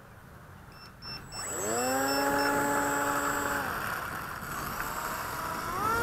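Electric motor and propeller of an FMS Dragonfly RC plane spinning up with a quick rising whine about a second in, holding a steady pitch for about two seconds, then throttled back. Near the end it is throttled up again to a higher pitch for the takeoff run.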